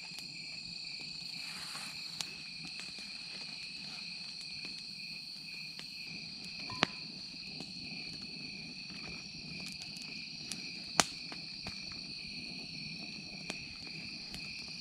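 Steady chirring of insects such as crickets, a continuous high two-toned drone, with a few sharp clicks, the loudest about seven and eleven seconds in.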